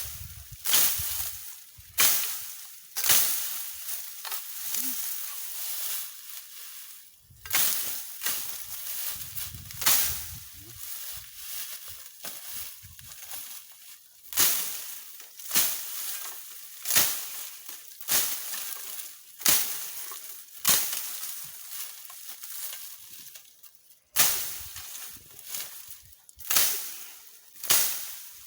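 Dry brush being cut and scraped by hand, heard as a series of sharp rustling swishes, each fading quickly, coming roughly once a second with a couple of short pauses.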